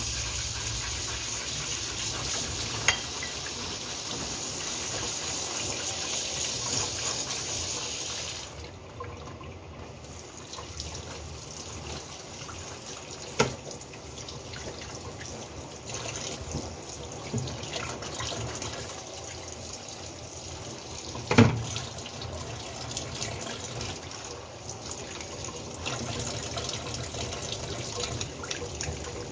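Kitchen tap running into a stainless steel sink as fish are washed under the stream. The rush of water drops noticeably about eight seconds in, and a few sharp knocks sound against the sink.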